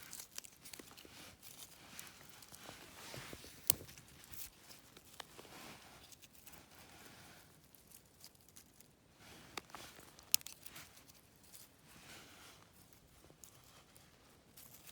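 Thin dry twigs being handled and laid onto a fire base: faint rustling and crackling, with two sharp snaps, one about four seconds in and one about ten seconds in.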